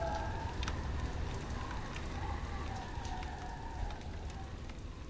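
Steady rain falling and slowly fading, with scattered small ticks of drops. A faint wavering tone sits over it for the first few seconds.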